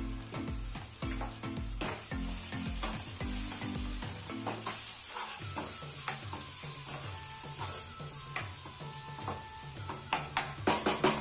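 Tomato-onion masala sizzling in a frying pan while a metal spatula stirs and scrapes it, with scattered clicks against the pan. Near the end comes a quick run of sharp taps, the spatula knocking on the pan. Background music plays throughout.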